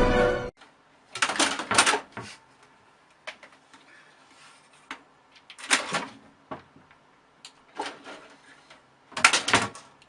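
Scattered household clicks and knocks, with three short bursts of clattering or rustling noise: about a second in, around the middle, and near the end.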